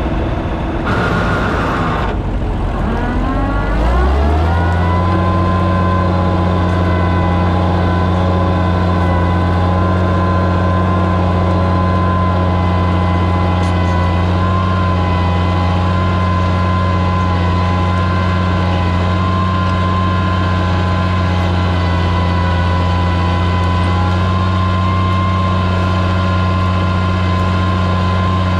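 Oliver 77 tractor's six-cylinder engine picks up speed over the first few seconds, then runs at a steady pull while drawing a rooster comb plow through the soil.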